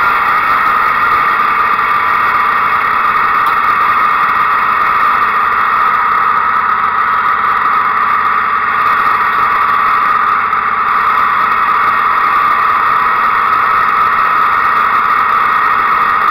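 Small gas engine running flat out with the steady high whine of a blower fan. It holds at one pitch and loudness throughout.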